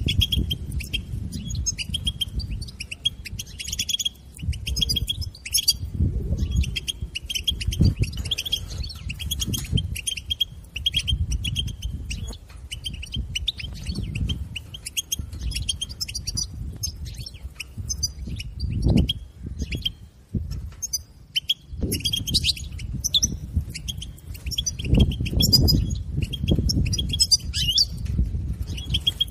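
European goldfinch chattering in its 'bitbita' calls: fast runs of short, high chirps in bursts with brief pauses, over a low, uneven rumbling noise.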